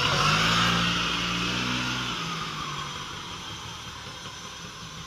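Kinetic Marvel scooter's freshly reassembled two-stroke engine pulling away as it is ridden off. The engine is loudest for the first couple of seconds, then fades as the scooter moves off down the lane.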